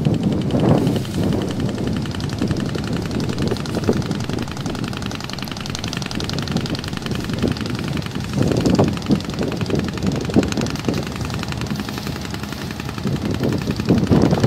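A boat engine running with a fast, even rattle, with gusts of wind buffeting the microphone, strongest about halfway through and near the end.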